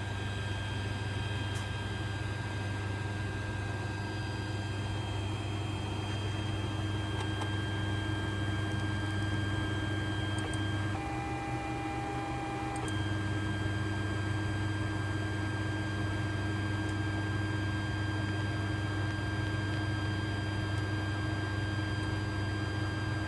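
Creality CR-10 3D printer running a print: a steady whine of stepper motors and fans. For about two seconds past the middle the motor tone shifts to a different pitch, then returns to the earlier note.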